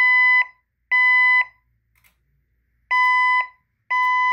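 System Sensor SPSR fire alarm speaker strobe sounding the temporal-three evacuation tone: steady half-second beeps in groups of three with a short pause between groups. It is the second-stage evacuation signal, played between spoken evacuation messages.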